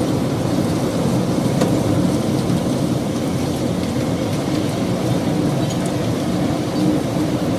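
Heavy downpour: rain falling hard in a steady, dense low rumble.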